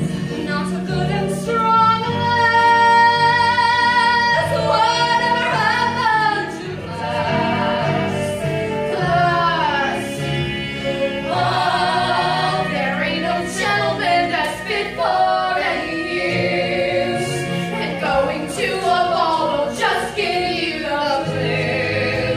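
A woman singing a song over accompanying music, with several long held notes sung with vibrato.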